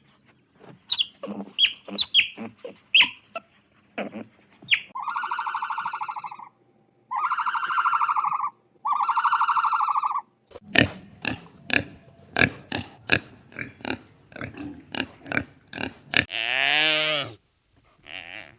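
Animal calls: a run of short, sharp grunts, then three long, buzzy, high calls of about a second and a half each, more rapid grunts, and one call falling in pitch near the end.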